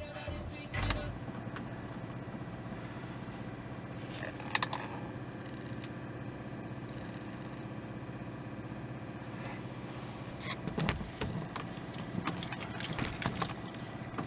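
Car keys jangling and clicking in the Fiat 500's ignition during attempts to start a car that won't start, over a steady hum. The clicks come singly near the start and middle, then in a quick cluster near the end.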